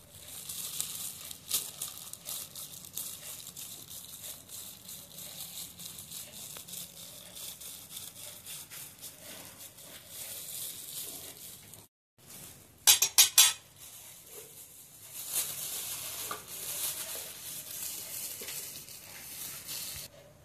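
A knife sawing through crusty bread rolls: a scratchy rasp with many small crackles. About thirteen seconds in, a quick run of four loud, sharp clinks.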